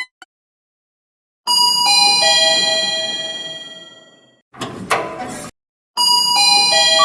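A descending three-note electronic chime, like a doorbell, rings and fades away over about three seconds. A short burst of noise follows, then the same chime starts again near the end.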